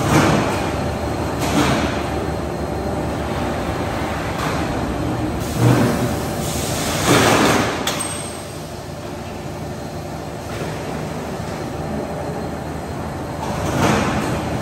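Roll-forming line for profiled steel roofing sheet running, a steady mechanical noise with several louder rushing surges of under a second as formed sheets are carried off and stacked, and a sharp click about eight seconds in.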